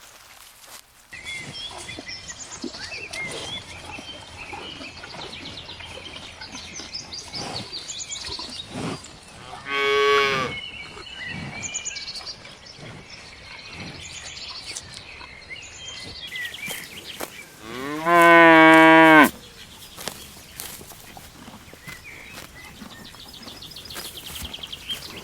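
Cows mooing: a shorter moo about ten seconds in, then a louder, longer moo with a clear steady pitch about three-quarters of the way through.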